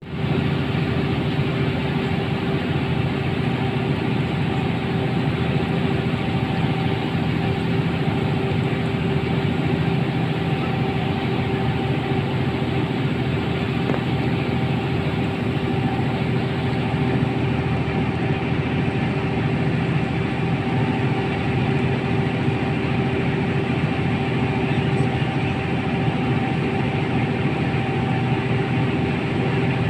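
An engine running steadily at a constant speed, a low, even drone with a steady hum that does not rise or fall.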